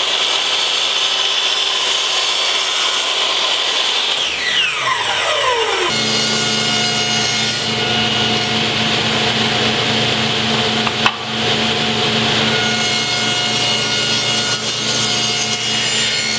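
Compound miter saw (chop saw) motor running with a steady high whine, then spinning down with a falling whine after about four seconds. After that, a table saw runs steadily as a board is fed through it for a 45-degree rip cut, with one sharp knock midway.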